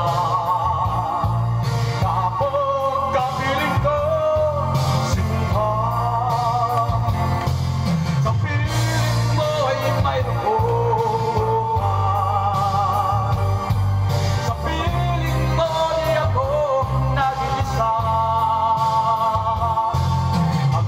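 A man singing karaoke into a handheld microphone over a backing track with a steady bass line, his voice wavering with strong vibrato.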